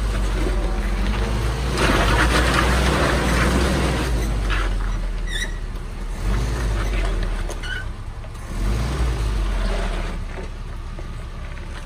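Flat-fender Willys jeep engine running at low speed as it crawls through a muddy rut, with more throttle and tyre-and-mud noise about two seconds in, then easing back off.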